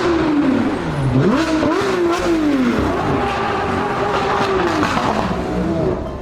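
Sports car engine sound effect revving, its pitch rising and falling several times as if speeding and shifting.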